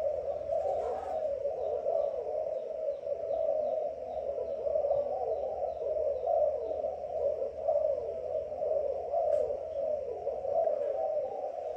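Many doves cooing at once, their calls overlapping into a continuous, wavering chorus, with a faint regular ticking higher up.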